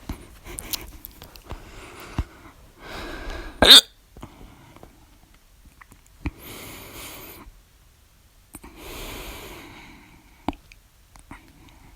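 A person hiccuping: about five short, sharp hiccups, the loudest a little under four seconds in, with breaths drawn between them.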